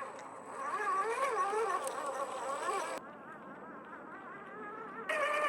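Electric motor and gearbox of a 1/10-scale RC crawler truck whining, the pitch wavering up and down with the throttle, with sudden changes in level about three and five seconds in.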